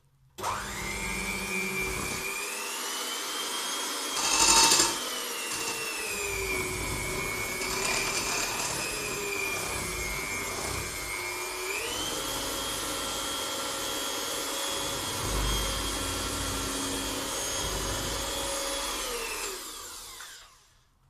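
Electric mixer motor running as it beats cookie dough in a bowl. It starts suddenly, is switched up to a higher speed about halfway through, then winds down and stops near the end. There is a brief louder rattle about four seconds in.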